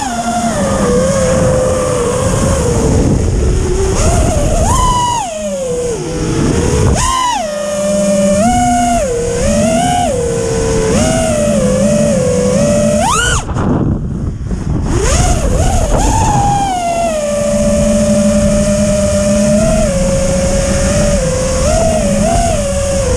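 FPV racing quadcopter's T-Motor brushless motors and propellers on a 6S battery, whining and rising and falling in pitch with the throttle over a steady rush of noise. About 13 seconds in the whine jumps sharply, then cuts out for about a second and a half before the motors spin back up.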